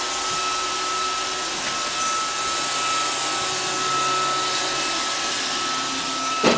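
iRobot Roomba robot vacuum running, a steady whir with a steady whine through it. A single sharp knock sounds near the end.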